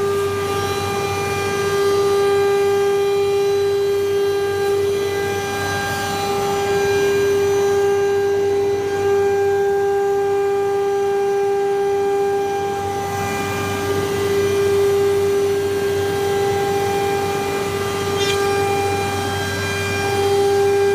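COSMEC FOX CNC nesting router running, its spindle giving a steady whine with a rough rush of cutting and dust-extraction noise that swells and eases every few seconds as the tool works the board.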